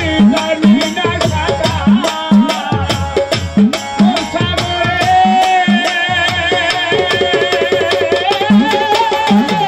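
Instrumental passage of a Bengali Baul folk song. Hand-drum strokes whose low pitch slides downward play under a sustained, wavering melodic line. About seven seconds in, a fast repeated note joins at roughly ten per second.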